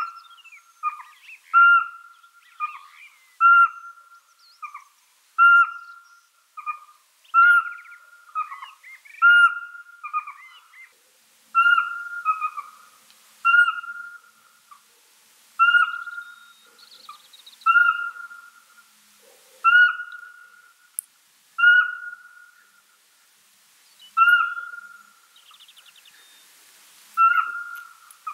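Pygmy owl singing: a long series of single short whistled notes on one pitch. They come about once a second at first and slow to about one every two seconds after ten seconds or so.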